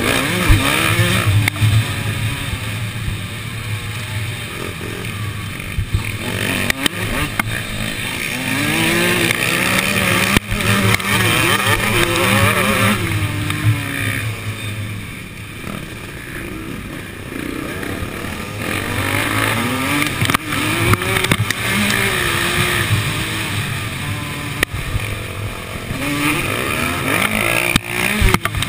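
Two-stroke Suzuki RM motocross bike's engine racing under load, its pitch climbing and dropping back again and again as the rider works the throttle and gears, heard from a camera on the bike with wind noise. Other bikes' engines are around it, with occasional sharp knocks from the track.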